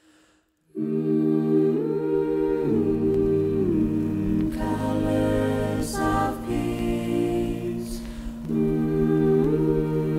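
A cappella vocal ensemble singing sustained, humming-like chords, shifting smoothly from chord to chord. The voices come in after nearly a second of near silence.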